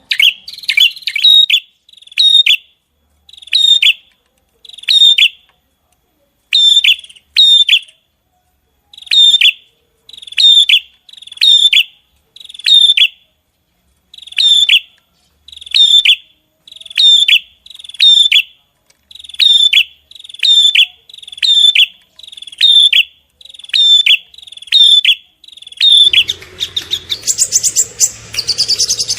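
A small songbird repeating a short, sharp, downward-sweeping call over and over, singly or in quick pairs roughly once a second, with clean silence between calls. About 26 seconds in it gives way to a denser, faster twittering over a low background hum.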